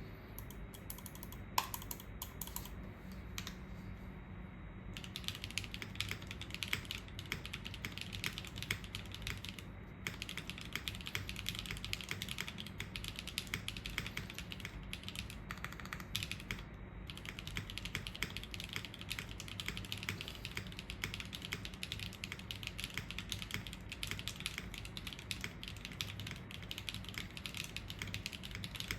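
Typing on a Shelby65 gasket-mounted mechanical keyboard with stock Kailh BCP switches, a carbon fibre plate and GMK keycaps. There are a few scattered keystrokes at first, then steady fast typing from about five seconds in, with two brief pauses.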